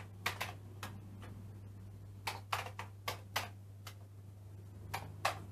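Keystrokes on a Commodore 64 keyboard: about a dozen separate, unevenly spaced clicks as a disk LOAD command is typed, over a steady low hum.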